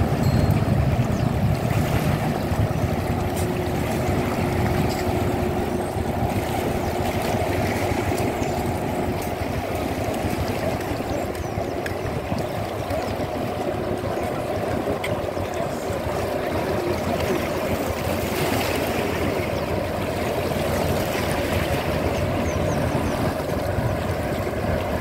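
Steady waterfront background noise: water lapping and gurgling along the shore, with a low rumble that is strongest at the start.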